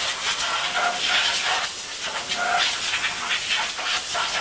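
Compressed-air blow gun blowing a steady hiss of air at the mill vise and jaws to clear metal chips. Faint whistling tones come and go in the hiss as the nozzle is moved.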